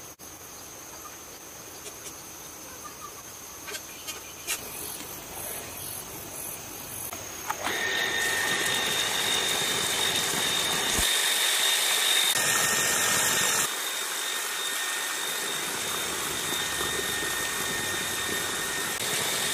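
A few clicks of plastic pipe fittings, then a small single-phase self-priming water pump, its burnt motor freshly rewound, starts about a third of the way in and runs steadily with a high whine, pumping water out through the hose.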